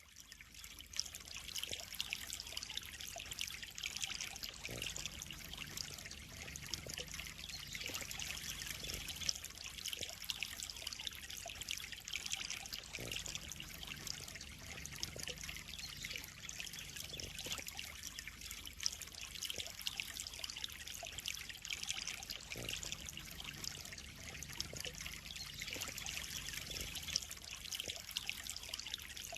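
Water trickling and splashing steadily into a koi pond, a continuous hiss dotted with small splashes.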